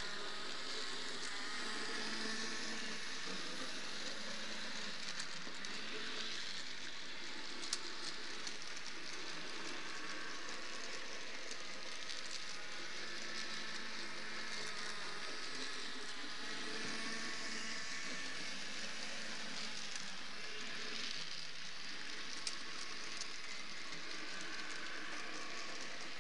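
H0e narrow-gauge model diesel locomotive running along its track: a steady hiss of its small motor and wheels, with a faint wavering whine and an occasional tiny click.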